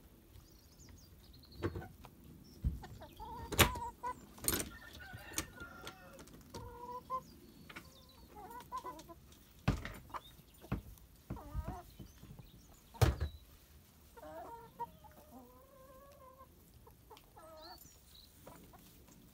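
Chickens clucking in short, wavering calls throughout, with several sharp knocks in between.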